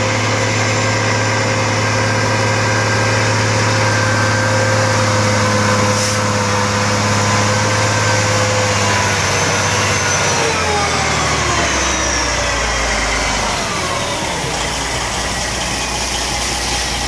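Western Star 4900 water truck's diesel engine running steadily while its spray heads hiss water onto the road; about ten seconds in the engine speed falls over a few seconds and settles to a low idle.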